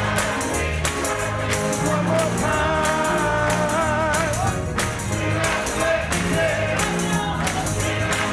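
Gospel music: voices singing with vibrato over a band with a steady bass line and evenly spaced percussion hits keeping the beat.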